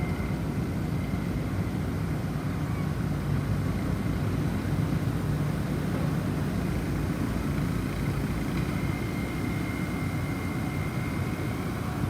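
Steady low rumbling wind of a snowstorm, with a faint high tone held for a few seconds near the end.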